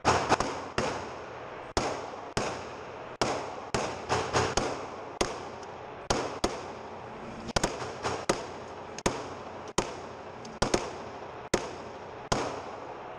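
Handgun shots fired at a range: about twenty sharp cracks at uneven spacing, some in quick pairs, each followed by a short echoing decay.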